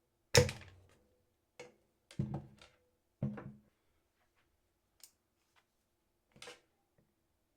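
Electrician's pliers cutting through 6 mm² wire: a run of sharp snaps and clacks, the loudest about half a second in, followed by several more over the next few seconds.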